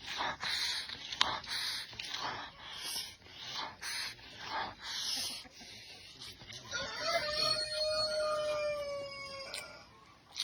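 Mouth-close eating noises, a run of short bursts about twice a second, then a rooster crows once, a single held call of about three seconds that sinks slightly in pitch at the end.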